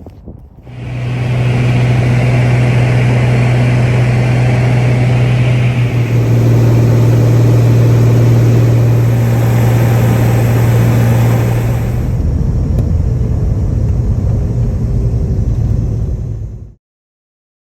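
Loud engine running at a steady speed, one unchanging low drone with no revving, cutting off abruptly near the end.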